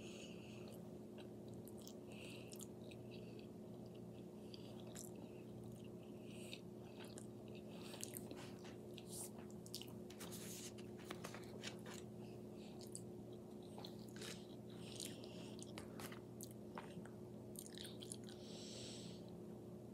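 Close-up chewing and wet mouth sounds of a person eating shrimp scampi pasta and bread, with many short sharp clicks and smacks scattered throughout. A steady low hum runs underneath.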